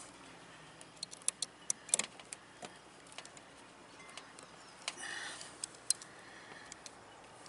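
Scattered small metallic clicks and ticks from needle-nose pliers and a wire's push-on terminal being worked back onto a capacitor terminal, a cluster about a second in and a few more near the end, with a brief soft rustle of wires.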